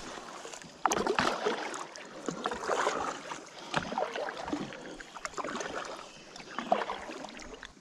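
Kayak paddle strokes in slow river water: the blades dip and splash, with water running off them between strokes, several times over the few seconds.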